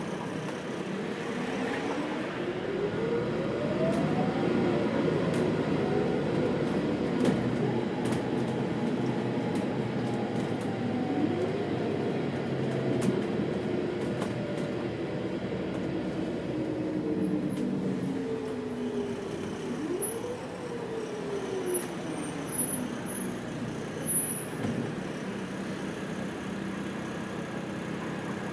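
City bus engine and drivetrain heard from on board, whining up in pitch as the bus pulls away three times, then falling back as it eases off in stop-and-go traffic.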